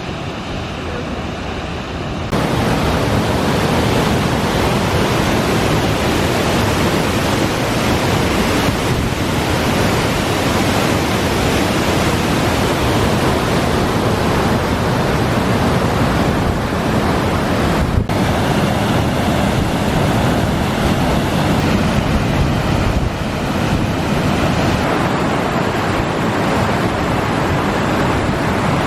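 River Tees water rushing over falls, a steady loud roar, with wind buffeting the microphone. It gets louder about two seconds in.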